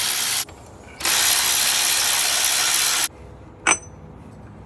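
Cordless drill running in two bursts, spinning out the crank pulley's T45 bolts, each burst stopping abruptly. Near the end comes a single sharp metallic clink as the pulley is freed.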